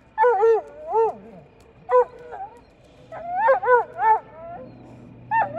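Canine yipping and whining: short, high, bending calls in irregular clusters. A low drone from the air tanker's engines comes up underneath from about halfway through.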